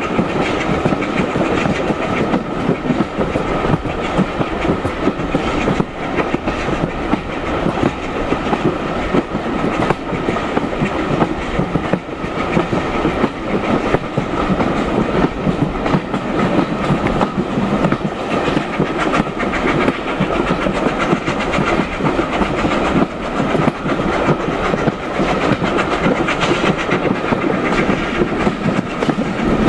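Train running along the track: steady running noise of the carriage wheels on the rails, with clickety-clack over the rail joints.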